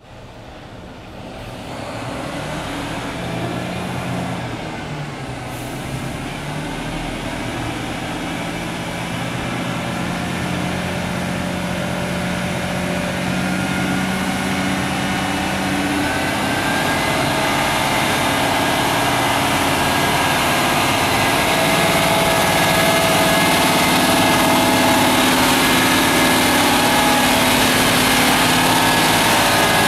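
Mercedes-Benz Arocs 3240 8x4 concrete mixer truck's diesel engine running as the truck drives up, its sound growing steadily louder as it comes closer.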